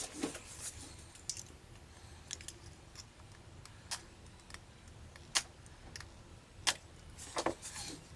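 Scattered light clicks and taps of small plastic and metal parts as the partly stripped Nikon Coolpix AW110 camera body is handled. The clearest clicks come about four, five and a half and six and a half seconds in, with a quick few near the end.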